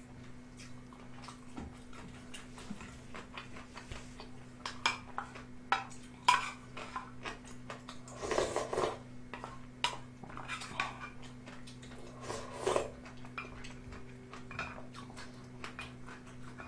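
A spoon clinking and scraping against a small yellow aluminium bowl and ramen pot, with one sharper metal knock about six seconds in and a few short sips of soup from the spoon.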